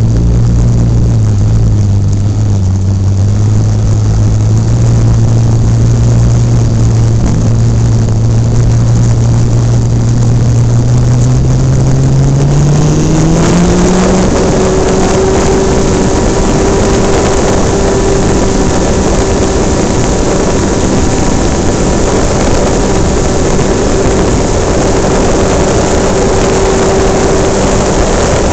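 RC model airplane's motor and propeller, heard from a camera on the plane: running at a steady low idle, then about halfway through the throttle opens and the pitch glides up to a steady higher note for the takeoff and climb, with a louder rush of air.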